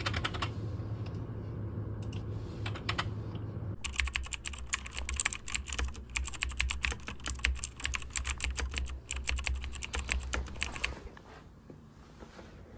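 Typing on a computer keyboard: a few scattered keystrokes, then a fast, dense run of typing from about four seconds in that stops near the end, over a low room hum.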